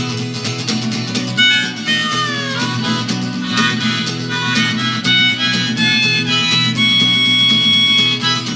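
Live folk-blues band music: a harmonica solo over a steadily strummed acoustic guitar. The harmonica bends its notes downward about two seconds in and holds one long high note near the end.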